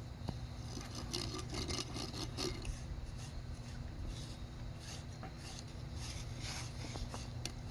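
Hand tools scraping gritty soil against cement bricks, in short irregular bouts with a few light knocks, over a steady low hum.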